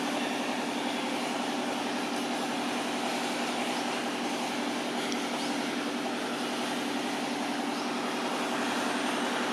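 Steady mechanical hum over a constant hiss.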